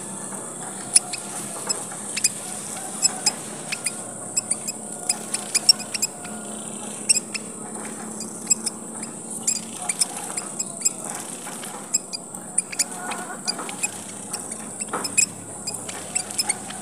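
Emprit merah papua (pipit merah papua), tiny finches, chirping in the busy 'gocar' style: many short, high-pitched chirps, several a second and overlapping, over a steady high hiss.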